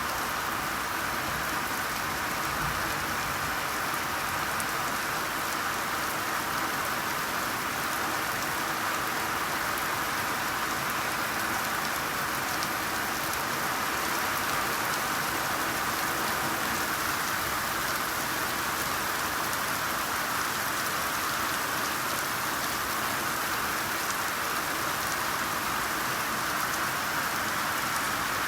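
Steady rainfall, a dense even hiss of raindrops with faint patter on a surface.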